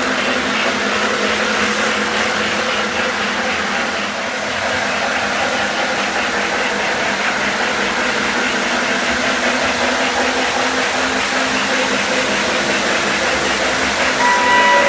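O-gauge model trains running on three-rail track: a steady hum of locomotive motors and rolling wheels, with faint regular clicking of wheels over track joints in the first few seconds. Near the end one of the locomotives' sound systems sounds a single steady signal tone.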